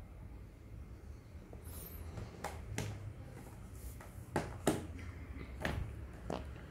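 A laptop being handled: about six sharp clicks and knocks, irregularly spaced, beginning about two seconds in.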